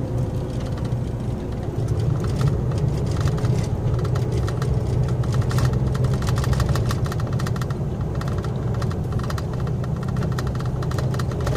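Heavy truck's diesel engine running steadily, heard from inside the cab as a low hum, with a fast rattle of the cab joining in about two seconds in.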